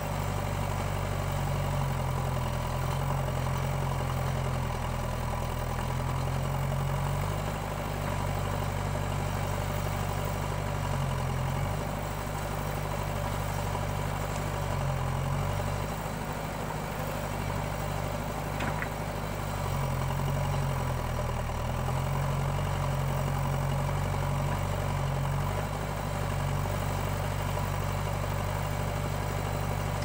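Diesel engines of a JCB backhoe loader at work and a farm tractor idling, a steady low engine note that shifts a few times as the backhoe works, with one faint tick about two-thirds of the way through.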